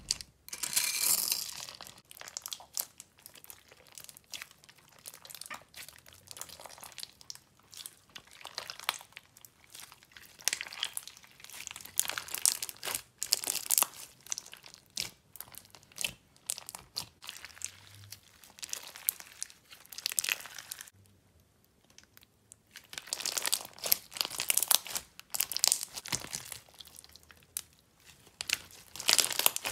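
Clear crunchy slime packed with hard gummy bear charms being squished and kneaded by hand, giving off irregular crunches and crackles. It goes quiet for a moment about two-thirds of the way in, then crunches more densely and loudly.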